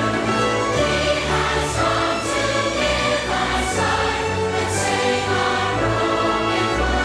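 Choir singing held chords over instrumental accompaniment with a low bass line.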